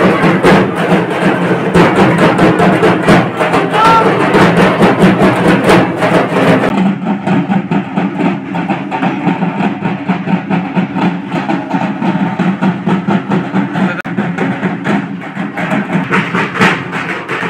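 Dhak drums beaten in a fast, continuous rhythm by a group of drummers. About seven seconds in, the sound changes abruptly and turns duller, but the drumming goes on.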